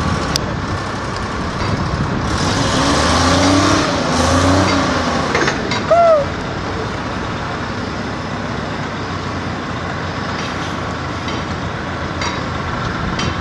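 Diesel towboat engines rumbling steadily across the water, with a hiss over them. A few seconds in the engine note swells and wavers up and down as the boats work the hull into position. Just before the middle a short tone rises and falls.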